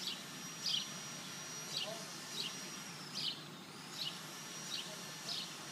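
A small bird chirping over and over, about seven short high chirps at uneven intervals, over quiet outdoor background.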